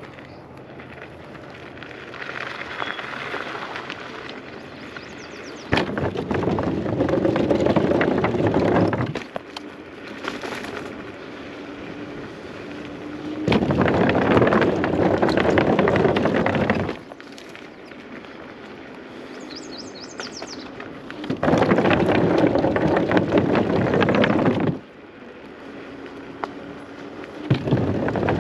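Electric scooter tyres rattling and clattering over boardwalk planks, in loud stretches of about three seconds that start and stop abruptly, four times. Between them the ride is quieter and smoother.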